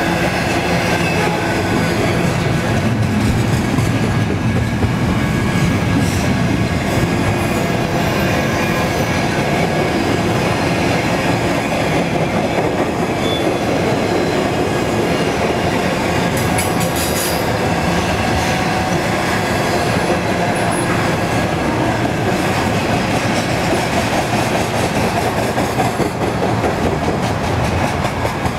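A train rolling past close by: a steady, loud rumble and clatter of steel wheels on the rails, with rail-joint clickety-clack and some wheel squeal.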